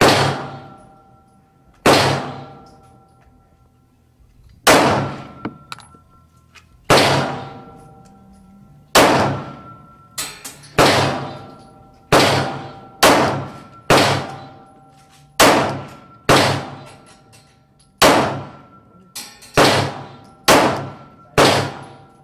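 Glock 19 Gen 4 9mm semi-automatic pistol fired in slow, deliberate single shots, more than a dozen in all. Each is a sharp crack with an echoing decay. The shots come every one to two and a half seconds at first and quicken in the second half.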